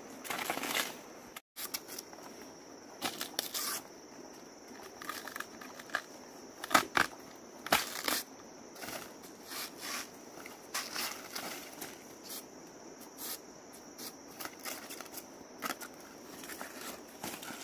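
Machete chopping and stripping the soft, juicy sheaths of a banana stem: irregular crisp cracks, tears and crunches, the sharpest a few seconds before the middle, with rustling of dry leaves and plant debris underfoot.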